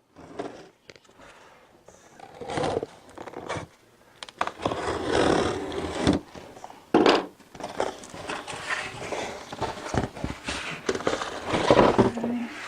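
Cardboard box and packaging being opened and handled: irregular scraping and rustling with several sharp knocks.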